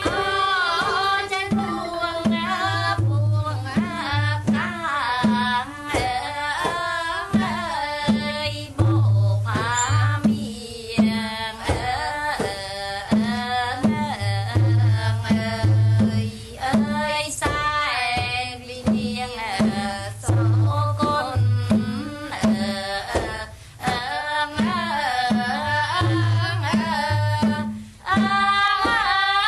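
A child singing a Khmer song over backing music with a steady, regular drum beat.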